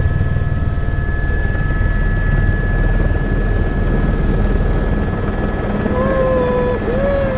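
Tour helicopter running steadily in flight: a constant low rotor drone with a steady high whine over it. Two brief voice-like sounds come near the end.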